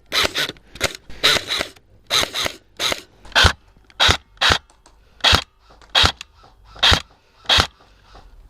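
Crunching footsteps on rough ground, a steady walking rhythm of roughly one step every 0.7 seconds.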